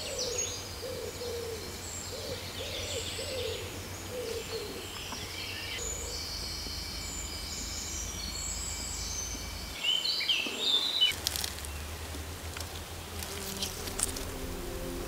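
Woodland ambience: many birds chirping and singing, with a low, repeated hooting call in the first few seconds over a steady low rumble. A louder flurry of calls comes about ten seconds in, and a few sharp clicks sound near the end.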